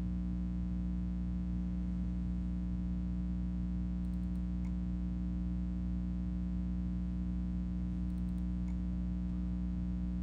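Steady electrical mains hum, a buzzing drone made of many even tones, with a couple of faint clicks about halfway through and near the end.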